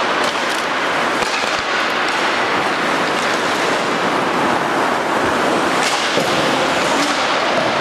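Ice hockey play on the rink: a steady scrape of skate blades on the ice with many sharp clacks of sticks and puck.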